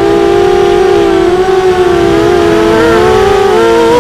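ImmersionRC Vortex racing quadcopter's brushless motors spinning Gemfan 5x4 propellers, a loud whine of several close pitches that waver together with the throttle and climb near the end.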